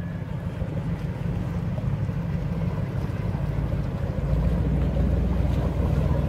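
Motorboat engines running at slow speed, a steady low rumble that grows louder about four seconds in as a boat draws nearer.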